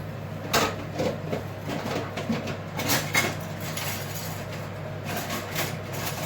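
Dishes and utensils clattering and clinking in a few sharp knocks, over a steady low hum.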